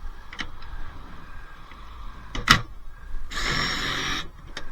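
Scrap dishwasher parts being handled: a few light clicks, one sharp knock about two and a half seconds in, then about a second of scraping.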